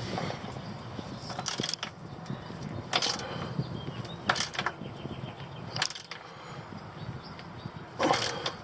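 Hand tools worked on a drain plug: five short clinks spaced a second or more apart, over a faint steady background.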